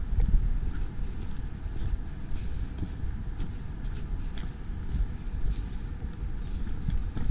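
Footsteps on a loose gravel lane at a brisk walking pace, about two steps a second, under a steady low wind rumble on the microphone.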